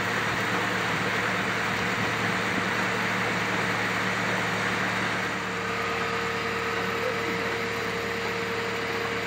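Passenger launch boat's engine running steadily at low speed, a low hum with a haze of noise over it; about halfway through a higher steady tone joins the hum.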